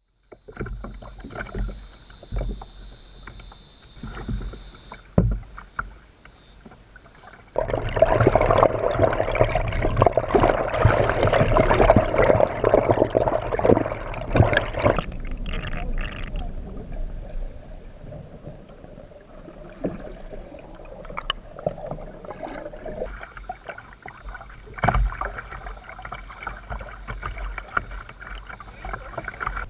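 Kayak paddle strokes dipping into the water, with splashing and sloshing that is loudest and densest for several seconds in the middle. A steady high drone, typical of cicadas, is heard at the start and again near the end.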